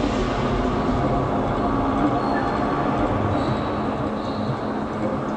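Steady low rumble of a moving vehicle, with a faint high whine about halfway through.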